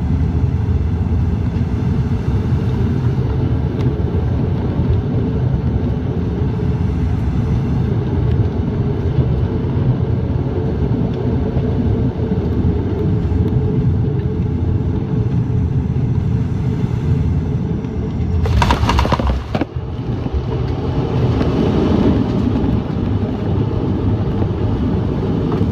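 Turboprop airliner's engines droning steadily, heard from inside the cabin on final approach. About three-quarters of the way through comes a loud, brief rush of noise as the wheels touch down, followed by a louder rushing roll along the runway.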